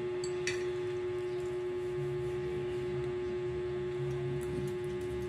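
Steady electrical hum with one clear held tone, and a single faint click about half a second in.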